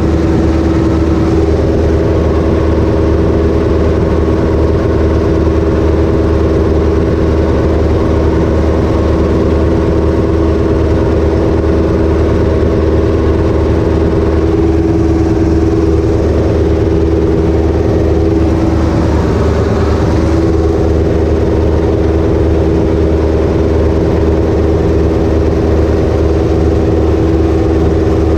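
Ursus C-330 tractor's two-cylinder diesel engine running steadily while pulling a second tractor through a wet field, heard from inside the cab. The pitch holds even, with a small waver a little past the middle.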